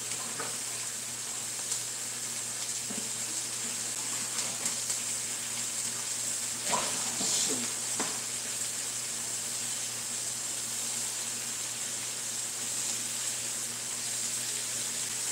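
Bell pepper and onion sizzling steadily in pork-chop drippings in a wok, with a low steady hum underneath and a few faint knocks about seven and eight seconds in.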